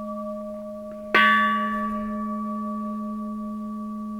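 Bronze Buddhist temple bell struck once about a second in, ringing out with bright upper tones that fade over a few seconds over a long, steady low hum. Before the strike it is still ringing from an earlier blow.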